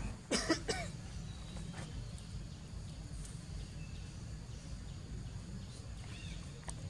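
Monkey giving three quick, high squeaks about half a second in, over a steady low outdoor rumble; a faint short chirp comes near the end.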